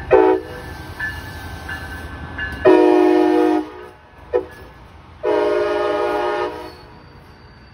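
Amtrak Siemens Charger diesel locomotive passing close by, its multi-chime horn sounding the end of one blast, then a long, a short and a long blast, the grade-crossing signal. A low rumble from the passing train drops away about two and a half seconds in.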